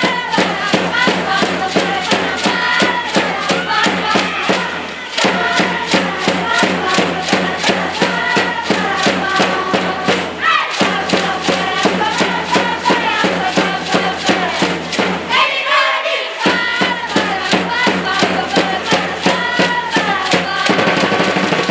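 Cheering section of spectators singing a chant in unison over a rapid, steady beat, in phrases of about five seconds with short breaks between.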